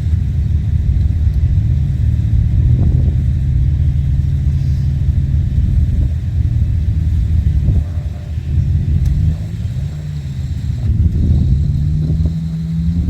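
ATV engine running with a steady low drone. Its pitch and loudness dip a little past the middle, then the pitch climbs near the end as the throttle opens.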